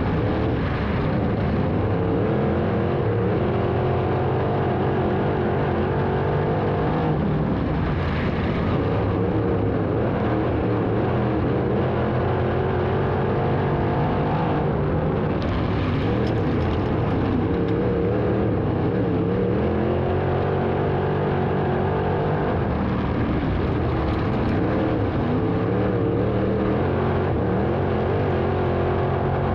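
Open-wheel dirt-track race car engine at racing speed, heard from on board. Its pitch falls and climbs again about every eight seconds as the car lifts for each turn and accelerates down the straights.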